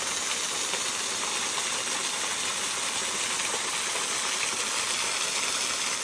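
Small waterfall splashing steadily onto a rock ledge and shallow pool: an even, rushing hiss.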